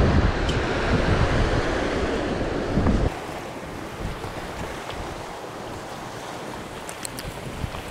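Sea surf on a rocky shore with wind buffeting the microphone, a heavy low rumble. About three seconds in it cuts to a quieter, steady hiss of sea and wind, with a few faint ticks near the end.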